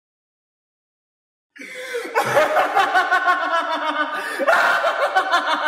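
Silence, then about a second and a half in, several people start laughing together in quick, pulsing bursts.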